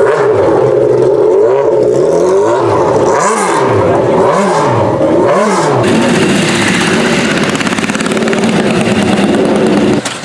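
Motorcycle engine revved up and down about five times in quick succession, then running at a steadier speed for several seconds; the sound changes abruptly near the end.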